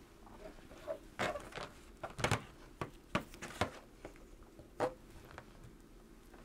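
Handling noise: about nine sharp clicks and knocks, spread irregularly over the first five seconds, as multimeter test leads with alligator clips are moved about and a second handheld multimeter is set down on the tabletop.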